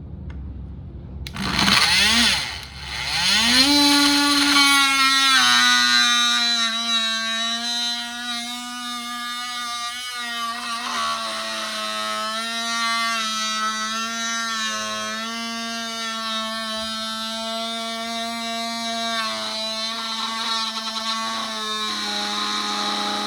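Oscillating multi-tool switched on: its motor spins up in rising glides over the first few seconds, then runs at a steady high-pitched whine.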